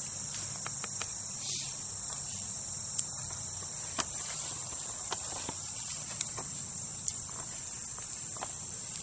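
A steady, high-pitched chorus of crickets, with a few sharp clicks scattered through it.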